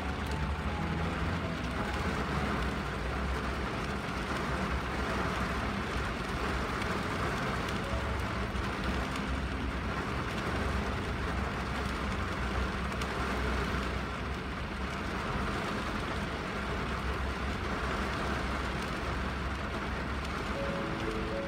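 Steady rain on a car windshield, heard from inside the car as an even hiss with a low rumble underneath.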